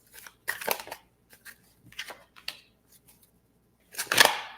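Tarot cards being handled and drawn from the deck: a series of short rustles and flicks, with the loudest near the end.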